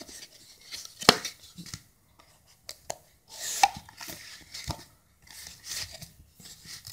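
Cardboard phone box and its paper inserts being handled. There is a sharp tap about a second in, then card and paper slide and rustle as the inserts are lifted out, with another knock near the end.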